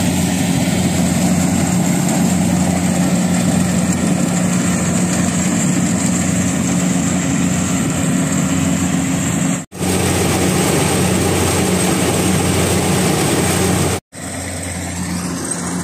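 Kubota rice combine harvester running steadily while harvesting: a continuous engine drone with a thin high whine above it. The sound cuts out for an instant twice, and after the second break near the end it is somewhat quieter.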